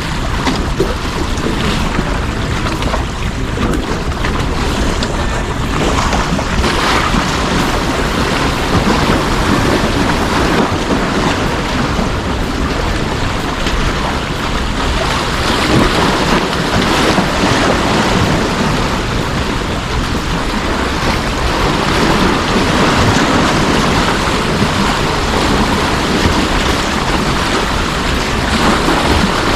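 Steady wind noise on the microphone mixed with sea waves washing against the harbor breakwater, a loud, even rushing that swells a little at times.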